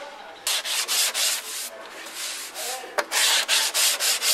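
Sandpaper rubbing by hand over body filler on a 2005 Ford Escape's rear wheel arch during rust repair, in rhythmic back-and-forth strokes. It starts about half a second in and quickens to about three or four strokes a second near the end.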